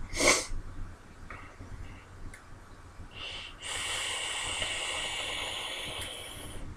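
Goon 22 mm dripping atomizer firing during a long draw: a steady hiss of air pulled through the airflow and e-liquid vaporising on the hot coil. It lasts about three seconds and cuts off suddenly near the end, after a brief shorter hiss just before it.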